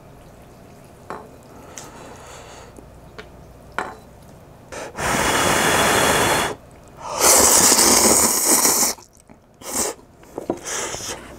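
A few light clicks of chopsticks in a bowl of hot instant ramen, then a breath blowing on a chopstickful of steaming noodles to cool them, followed by one long, loud slurp of the noodles.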